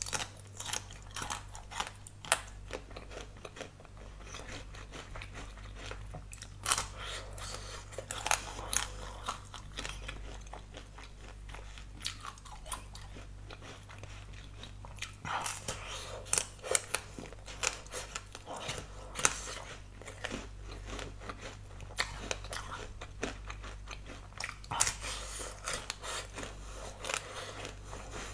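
Close-miked biting and chewing of a frozen watermelon-shaped dessert: irregular crisp crunches and clicks that come in clusters, over a low steady hum.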